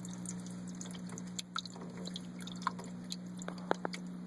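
Small electric water pump humming steadily, with water dripping and splashing in scattered drops.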